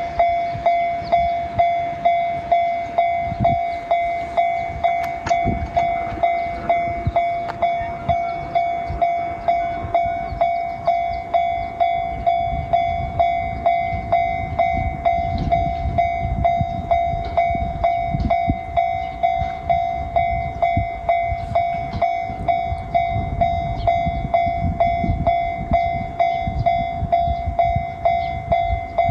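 Japanese railway level-crossing alarm ringing its repeated "kan-kan" tone, about one and a half strikes a second without a break, over the low rumble of a train running by on the Joetsu or Agatsuma Line.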